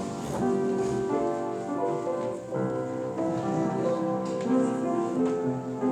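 Piano playing a slow hymn melody with sustained chords.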